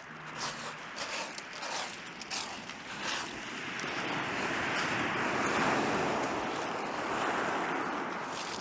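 Sea waves breaking and washing up the shore: one wave swells up over a few seconds and slowly dies away. There are a few short clicks and rustles in the first three seconds.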